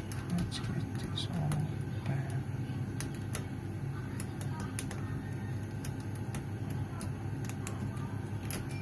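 Irregular small metallic clicks of a lock pick hook and tension wrench working the pin stack inside a cheap padlock, over a steady low hum.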